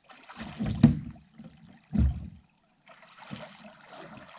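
Water splashing, with dull knocks about every second and a half, as a small one-person boat sets off through the water.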